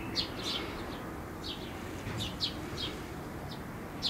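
A small bird chirping: about eight short, high chirps, each sweeping downward, irregularly spaced over a steady low background rumble.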